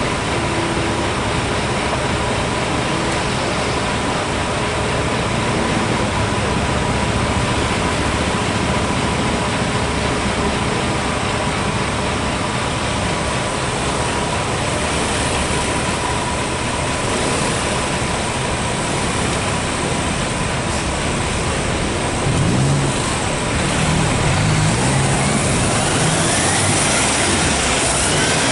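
Street traffic around a Mercedes-Benz Arocs concrete mixer truck running its diesel engine. About 23 seconds in, the truck's engine gets louder and rises in pitch as it pulls away.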